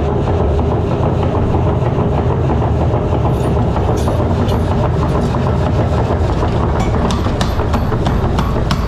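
Mechanical power hammer running and striking red-hot steel on its anvil in a fast, steady train of blows, several a second, over a loud mechanical rumble; the strikes grow sharper from about halfway through.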